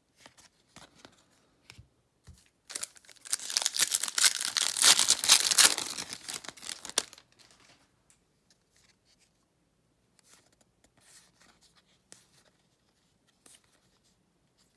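Foil wrapper of a Topps baseball card pack being torn open and crinkled, a loud crackling stretch of about four seconds near the start. Before and after it, trading cards are shuffled and slid through the hands with soft light clicks and rustles.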